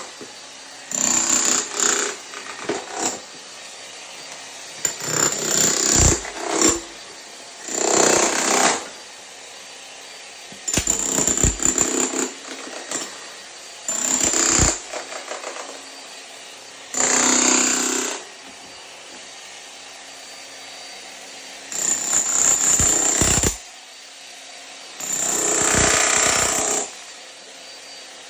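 Jackhammer chipping up a bathroom floor, run in repeated bursts of one to two seconds with short pauses between them.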